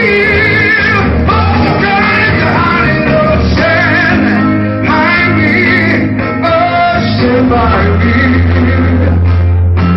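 Live blues band: a man singing over electric and acoustic guitars, with a steady low bass line under the melody.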